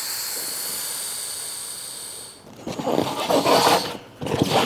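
Air hissing out of a rubber inner tube's valve stem, fading away over about two seconds. Then rubber rubbing and scraping as the limp tube is worked into the tire.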